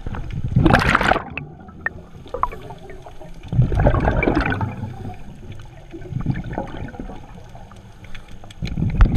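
Underwater bubbling and gurgling from a diver's exhaled breath, heard through the camera housing, in four bursts about a second long that come every few seconds, with faint scattered clicking between them.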